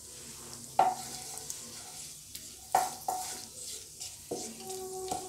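Slit green cardamom pods sizzling lightly in hot ghee in a non-stick kadai, while a wooden spatula stirs them, knocking against the pan several times; each knock leaves the pan ringing briefly.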